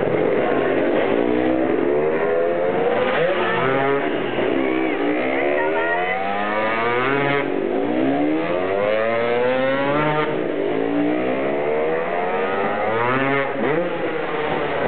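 Motocross bike engine revving during a freestyle jump, its pitch rising and falling over and over, with steep climbs every few seconds.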